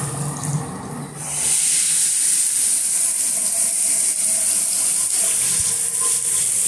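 A bathtub's water being switched from the tub spout to the shower by lifting the spout's diverter pin. The flow from the spout dies away, and about a second and a half in a steady hissing shower spray comes on and keeps running, a sign the new spout's diverter is sealing and sending the water up to the shower.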